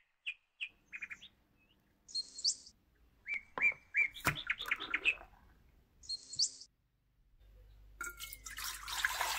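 Birds chirping in short, bright calls for the first half. From about three-quarters of the way in, milk is poured in a stream into a stainless steel mixing bowl with a splashing sound.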